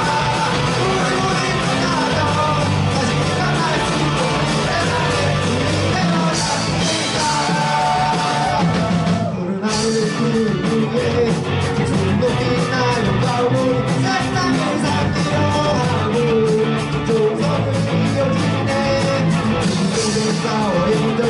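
Live rock band, electric guitars, bass, drums and keyboard, playing a punk-rock song at full volume. About nine seconds in the band cuts out briefly and comes back in on a fast, steady drum beat.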